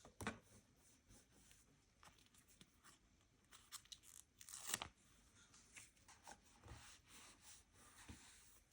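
Faint tearing and crinkling of paper, with scattered small clicks and rustles from journaling materials being handled; the loudest tear comes about halfway through.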